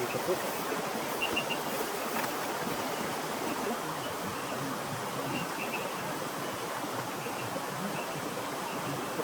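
Steady rushing of water, an even hiss without a break, with a few faint, short high chirps now and then.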